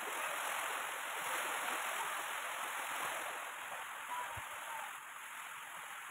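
Steady rushing noise without any tone or rhythm, easing off a little in the second half.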